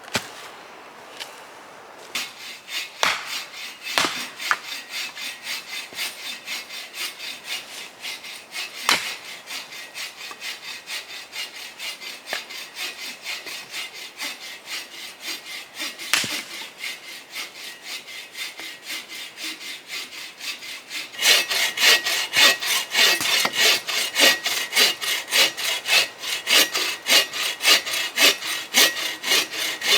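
Hand saw cutting through firewood in steady back-and-forth strokes, which become louder and quicker about two-thirds of the way in. A few sharp knocks come in the first half.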